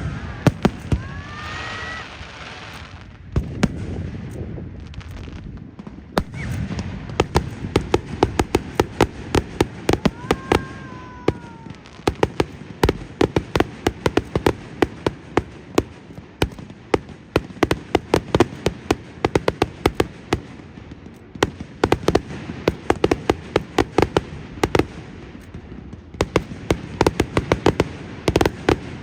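Fireworks display: a long run of rapid crackling bangs and pops with some deeper booms. Two whistling tones, one rising near the start and one about ten seconds in, rise and then tail off.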